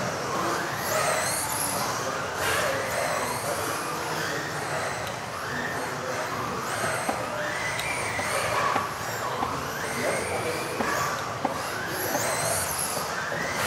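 Several electric RC off-road buggies racing in the modified class: their motors whine, rising in pitch again and again every couple of seconds as they accelerate out of corners, with a few sharp clicks and knocks, all echoing around a large hall.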